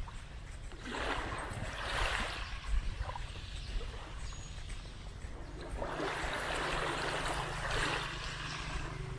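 Small waves washing gently onto the beach in irregular swishes, the longest about six seconds in, over a low rumble.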